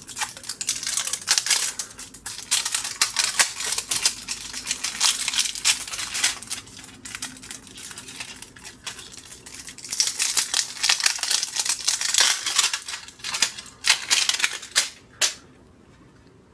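Trading cards and their plastic packaging being handled: a dense run of quick clicks, flicks and crinkles that stops about a second before the end.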